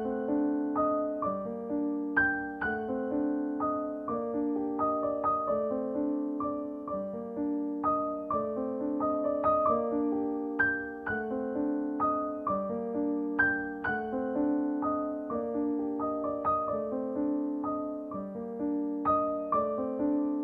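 Background keyboard music: a steady, repeating pattern of piano-like notes that ring and fade.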